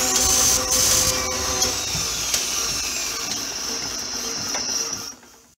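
Mechanical whirring sound effect of an animated intro, steady humming tones under a high whine that slowly falls in pitch, fading out near the end.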